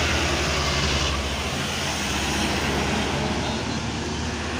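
A bus engine drones low as it passes on the road, over steady traffic noise. The engine drone fades about a second and a half in, leaving the road noise.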